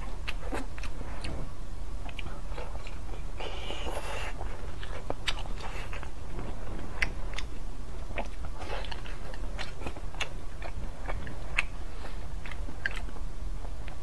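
Mouth sounds of a person eating thin-skinned steamed buns: biting and chewing, with frequent small sharp clicks throughout.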